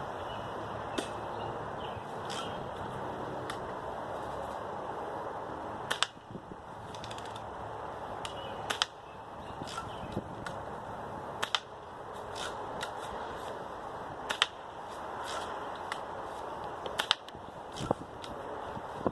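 BB gun firing a series of sharp shots, the loudest about one every three seconds with fainter clicks between, over a steady background hiss.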